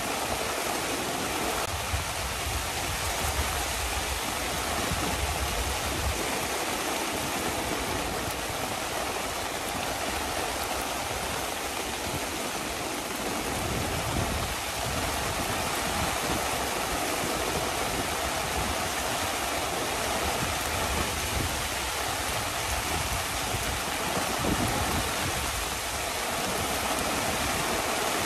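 Heavy rain falling steadily, an even hiss with a low rumble that swells and fades a few times.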